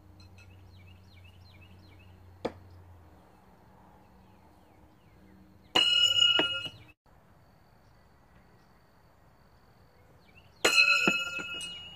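Steel throwing knives hitting a wooden log target: two hits, about 6 and 11 seconds in, each a loud metallic clang of a few quick strikes with bright ringing that dies away. A smaller sharp knock comes about 2.5 seconds in.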